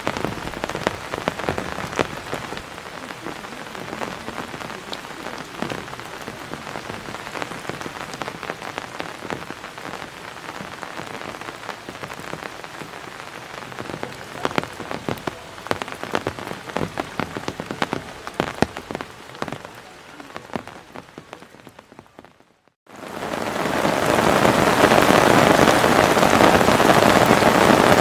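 Heavy rain pattering down, with many separate drops striking close by. About 23 seconds in the sound breaks off briefly, then comes back as a much louder, denser downpour.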